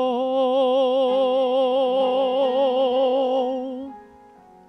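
A man singing a hymn solo, holding one long note with steady vibrato on the end of the word "billows", over grand piano accompaniment. The voice stops about four seconds in, leaving the piano sounding softly alone.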